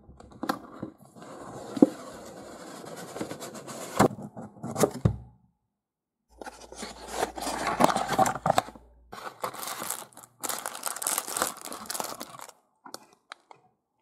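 A cardboard product box and its inner cardboard tray being opened and handled: sliding, scraping and rustling with a few sharp knocks, broken by about a second of silence partway through.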